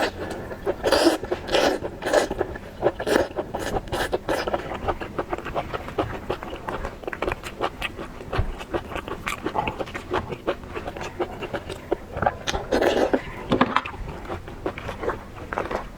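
Close-miked eating of raw lobster: wet chewing, smacking and sucking with a rapid run of small clicks and crackles, busiest about a second in and again near the end.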